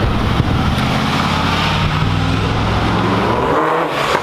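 A sports car's engine and exhaust held at steady revs, a loud, even low drone, which drops away suddenly near the end.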